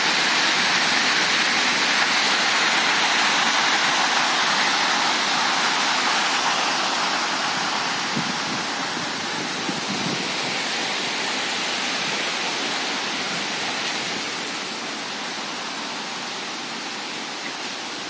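Water pouring over a concrete weir, a steady rushing that grows gradually fainter over the second half.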